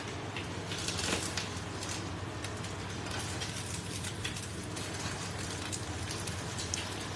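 Bánh xèo batter sizzling and crackling in a small hot pan on a gas burner, with a steady low hum underneath.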